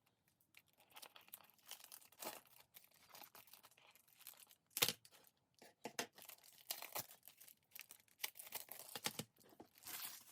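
Plastic shrink-wrap being torn and crinkled off a CD jewel case, in irregular crackles with one sharper snap about five seconds in.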